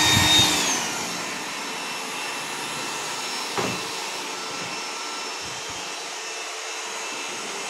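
iRobot Roomba 980 robot vacuum running, a steady whir of its suction motor and brushes. In the first second its whine glides down and the level drops, then it runs on evenly. A single sharp knock about halfway through.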